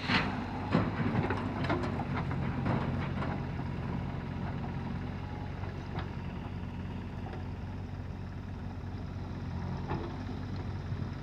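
Heavy diesel engine running steadily, with a cluster of sharp metallic clanks and knocks in the first three seconds and a couple of single knocks later.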